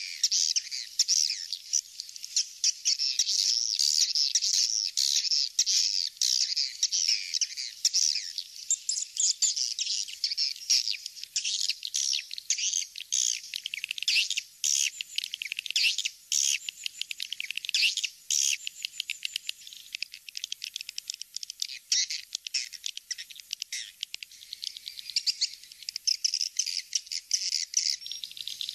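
Swiftlet lure call: a recording of swiftlets twittering, dense rapid high chirps running on without pause, thin with no low end. It is the call sound played through tweeters to draw swiftlets into a swiftlet nesting house.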